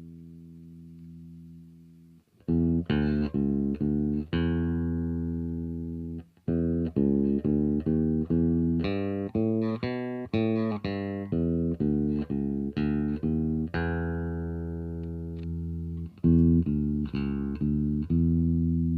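Fernandes FRB-60 Revolver bass guitar played solo. A held low note dies away, then comes a run of plucked notes with a short break about six seconds in. A longer note rings out near the end before a few more plucked notes.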